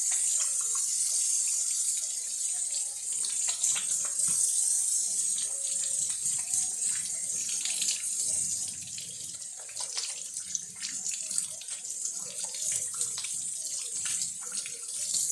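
Hot water running from a sink tap while hands are washed under it: a steady hiss with uneven splashes.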